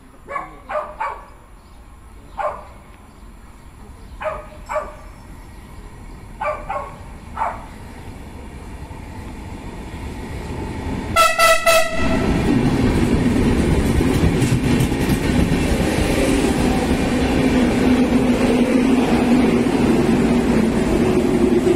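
A Renfe Class 470 electric multiple unit sounds its horn, one loud blast of about a second broken into short toots. It then runs into the station, a steady rumble of wheels and running gear that grows louder, with a low hum in the last few seconds. Several brief chirps come before the horn.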